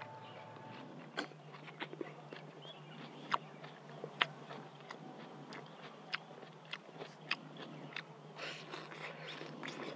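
A person biting into and chewing food, with short, sharp crunches at irregular intervals.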